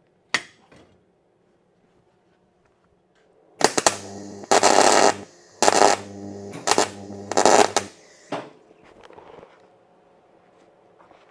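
Electric arc welder laying short tack welds on steel angle iron: about five bursts of arc crackle over some four seconds, each with a low electrical hum under it. A single sharp click comes shortly before the welding.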